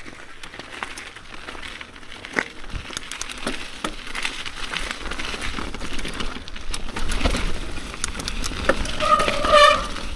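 Mountain bike descending a wet dirt trail: tyres rolling over roots and rock with the chain and frame rattling and many sharp knocks, growing louder as speed builds. Near the end the disc brakes give a short squeal.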